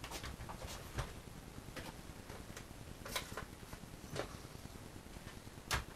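Scattered light clicks and taps of batteries being fitted into a vintage RC truck and its plastic body shell being fitted back on, about five clicks with the sharpest one near the end.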